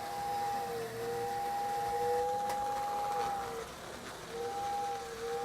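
Marx toy train whistle station blowing its two-tone whistle in separate blasts: a short one, a long one of about two and a half seconds, another short one, and a fresh one starting near the end. The pitch dips slightly as each blast starts and stops.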